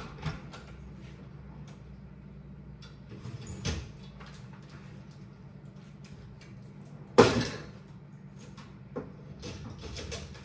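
Off-camera kitchen clatter: scattered knocks and clunks, typical of cabinets or drawers being opened and shut, the loudest about seven seconds in, over a steady low hum.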